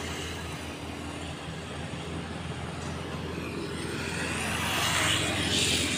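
Road traffic on a bridge: a steady hum and rush of passing vehicles, growing louder as a vehicle passes close about five seconds in.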